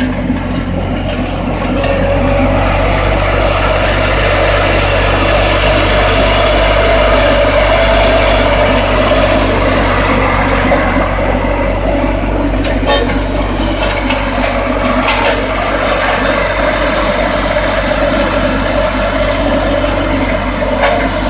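Bomag BW121AC tandem vibratory roller's diesel engine running steadily.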